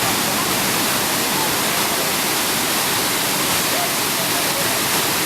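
Waterfall: a steady rush of falling water, even and unbroken.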